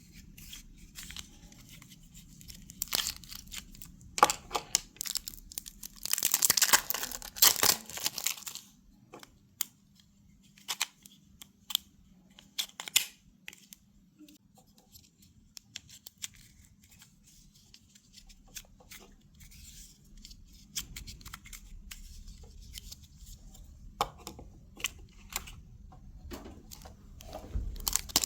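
Candy packaging being torn open and crinkled by hand, in irregular bursts with scattered clicks and taps. The longest, loudest stretch of tearing comes about six to eight seconds in.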